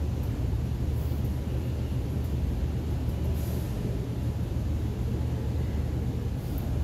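A steady low rumble throughout, with a few faint light ticks over it.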